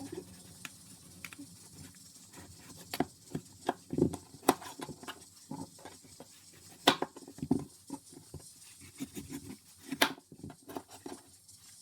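Knife slicing a hard unripe green mango, with irregular clicks and knocks as the blade cuts through and taps down.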